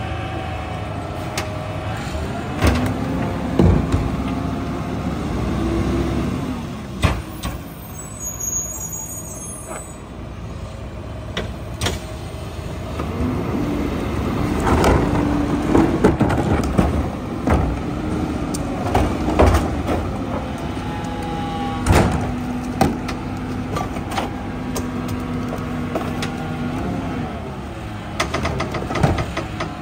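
New Way rear-loader garbage truck running, its hydraulic packer whining steadily in several long stretches over the engine's drone as the load is compacted. Sharp bangs come now and then as carts are tipped and knocked against the hopper.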